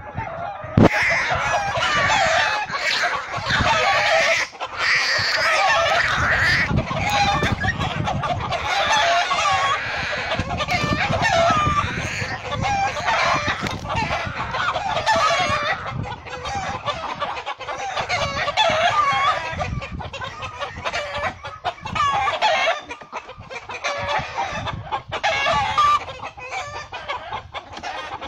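Mother hen squawking and cackling loudly without letup as she attacks a hawk, her defensive calling against the predator, with short sharp scuffling and wing sounds mixed in.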